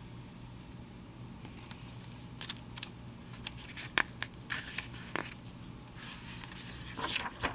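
Pages of a large picture book being handled and turned: paper rustling with scattered sharp clicks and taps, starting about a second and a half in, over a faint steady low hum.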